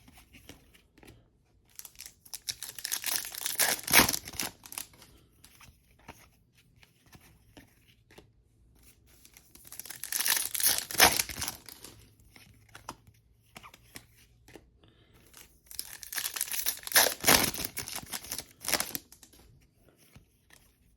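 Trading-card pack wrappers torn open and crinkled by hand, in three separate bursts of ripping and crumpling with quiet handling between.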